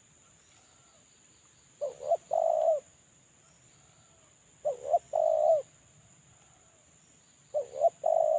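Spotted dove (terkukur) cooing: three calls about three seconds apart, each two short notes followed by a longer held note, with fainter coos between them. The bird is a captive decoy whose call is used as a lure to draw in wild doves.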